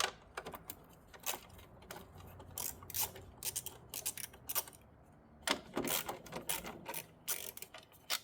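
Irregular clicks and clatters of hand tools and parts being worked loose on the top of a car engine.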